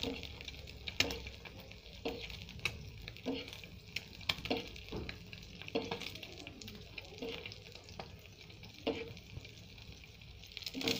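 An egg sizzling and crackling in ghee in a nonstick frying pan on a low flame. A steel spoon basts hot ghee over the top, giving short clicks and scrapes against the pan about once a second.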